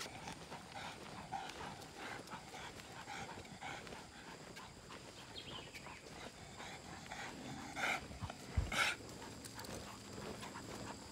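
Leashed hunting dogs being walked along a dirt track, with footsteps and the dogs' movement. Two short, louder sounds come about eight and nine seconds in.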